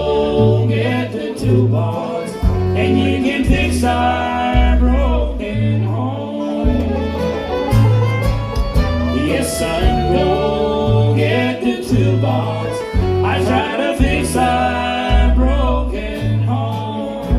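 Bluegrass band playing an instrumental passage with fiddle and guitar over a bass that alternates between notes about twice a second.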